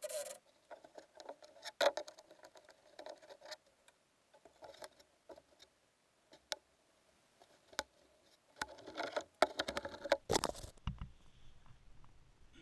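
Thin wooden template battens being handled and fitted against a fibreglass hull mold: irregular light scraping and rubbing, with a few sharp clicks and knocks, busiest near the end.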